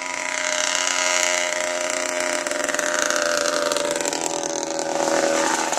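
A motor engine running steadily, a continuous hum that dips slightly in pitch near the end.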